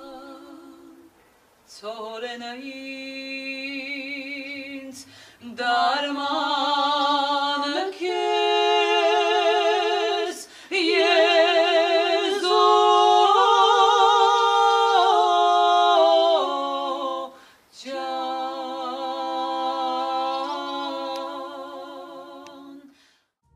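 Women singing a slow unaccompanied song: long held notes with vibrato, in several phrases broken by short breaths, swelling loudest in the middle and fading away near the end.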